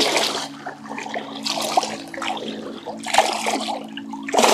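Shallow river water splashing and sloshing in irregular surges, about four in all, as a small Atlantic salmon is released from a landing net by hand.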